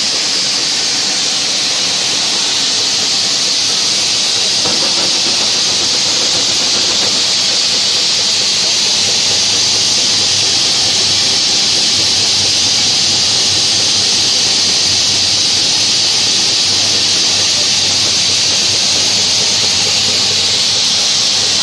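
Mini dal mill machine running steadily, with pulses passing through it and over its screen: an even, loud, high hissing rush.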